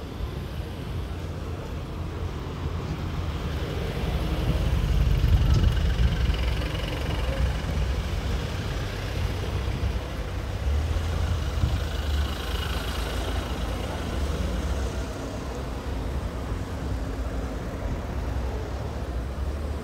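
City street traffic: vehicles driving past with a steady low engine and tyre noise that grows louder about four seconds in, then eases.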